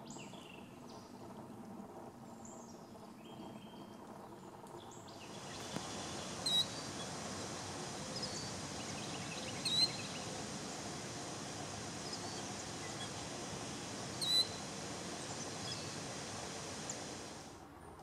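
Killdeer calling: three sharp, high calls a few seconds apart over a steady hiss of background noise. Before them, a quieter stretch holds only faint bird chirps.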